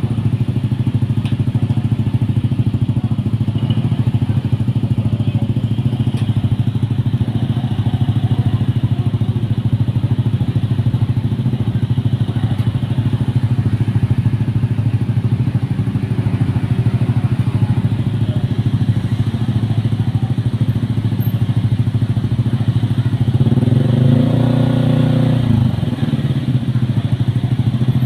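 A small engine runs steadily nearby with an even low drone. About 23 seconds in, a louder passing vehicle swells and bends in pitch, then fades back into the drone.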